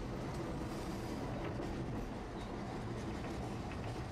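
Tosaden streetcar running along its track, heard from inside the car: a steady rumble of wheels and motor with a few faint clicks.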